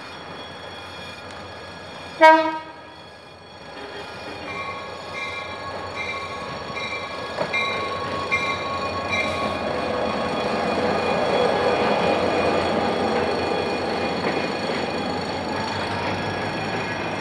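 A GM GT-22 diesel locomotive gives one short horn toot about two seconds in, the crew's usual greeting. Its engine and the train's wheels then grow steadily louder as it hauls the passenger train past. A repeating beep sounds for a few seconds after the horn.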